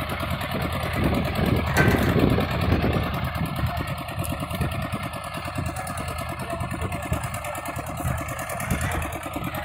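Fishing boat's engine running steadily with a fast, even beat, growing louder for a second or two near the start.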